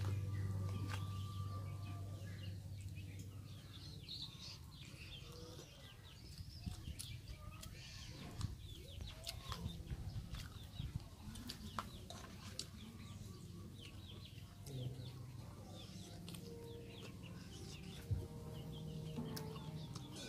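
Roast chicken being torn apart by hand and chewed: many small sharp tearing and mouth clicks, with birds calling in the background.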